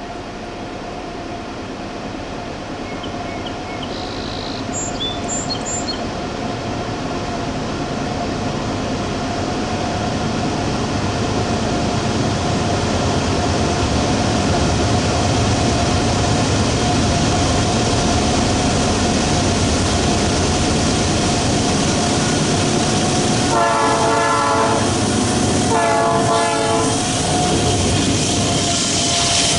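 GE diesel locomotives of a loaded grain train working hard uphill, their rumble growing louder for about the first half as they approach and then holding steady. Near the end the locomotive horn sounds twice in short blasts.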